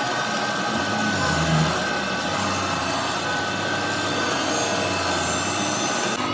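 Electric arc welding on a truck differential spider shaft, building up the worn shaft with weld; the arc runs steadily without a break.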